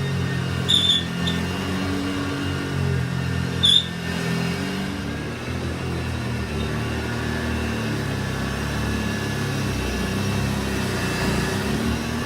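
1960s Hoover Junior 1334A upright vacuum cleaner running steadily, its motor humming. Twice, about a second in and near four seconds in, there is a short, loud squeak from its back wheels, which need grease.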